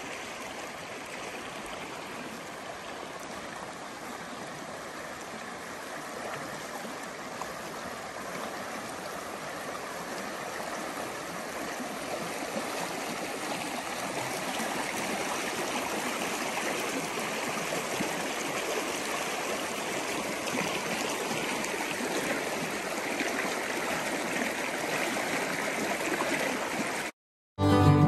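Small creek flowing, a steady rush of water that grows a little louder partway through. Near the end it cuts off abruptly, and after a moment of silence guitar music begins.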